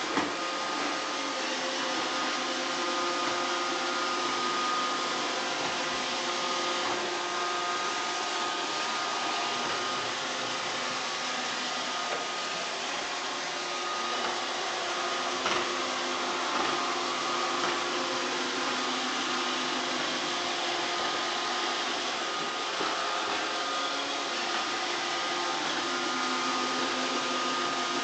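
iRobot Roomba robot vacuum cleaner running, a steady motor and brush whir with a couple of light knocks about halfway through.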